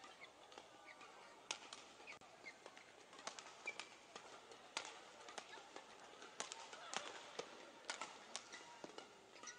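Faint badminton rally: crisp racket strikes on the shuttlecock about once a second, with short squeaks of shoes on the court.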